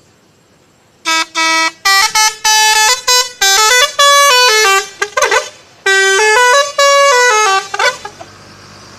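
Bus 'telolet' musical horn playing a tune of short and held notes that step up and down in pitch, starting about a second in and stopping near the end. A low engine hum follows.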